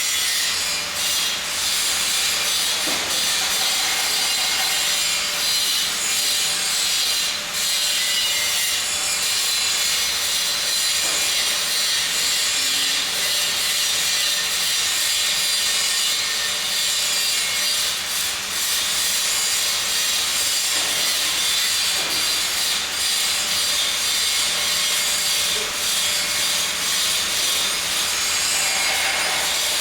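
Welding arc crackling and hissing steadily without a break.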